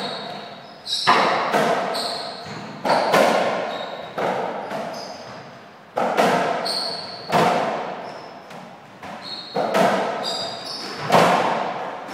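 Softraquet rally: sharp hits of the ball on racquets and the court walls, about one every second or so, each ringing out in the echoing hall, with short high squeaks between hits.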